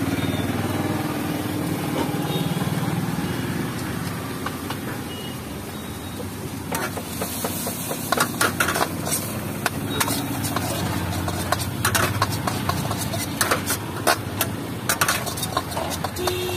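Metal ladle scraping and clanking against a steel wok as fried rice is stir-fried. The strokes start about seven seconds in and come in quick, irregular runs over a steady low rumble.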